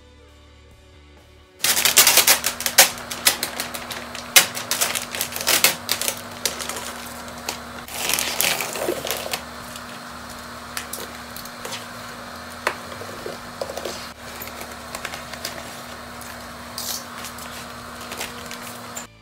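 Faint background music, then, about a second and a half in, a large sheet of vinyl wrap film crinkling and crackling as it is handled and laid over a car fender. The crackles are densest in the first few seconds and swell again near the middle, over a steady low hum.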